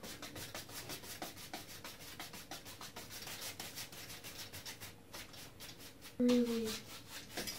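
A large flat paintbrush scrubbing over a stretched canvas in quick back-and-forth strokes, several a second, a dry scratchy rubbing. About six seconds in there is a brief low hum that falls slightly in pitch.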